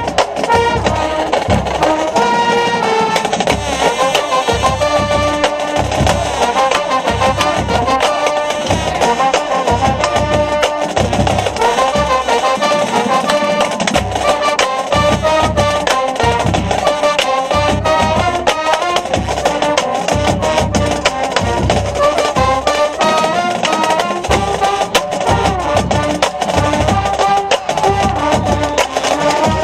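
Marching band playing in the stands: a brass melody over a steady drum beat.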